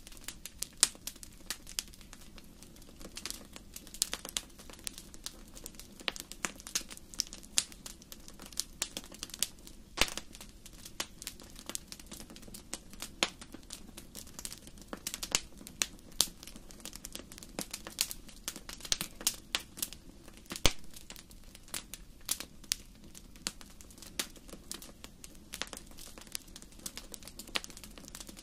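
Wood fire crackling in a fireplace: irregular sharp pops and snaps, several a second, over a steady low background noise.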